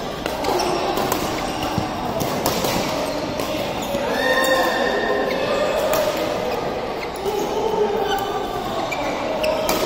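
Badminton doubles rally: sharp cracks of rackets striking the shuttlecock, several times, mixed with short squeaks of court shoes on the floor.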